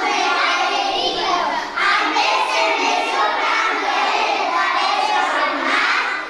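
A group of young children singing together in high, wavering voices.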